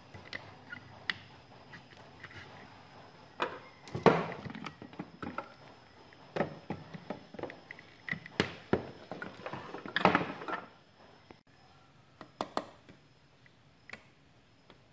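Scattered knocks and clicks of tools, wires and parts being handled on a workbench, the loudest about four and ten seconds in.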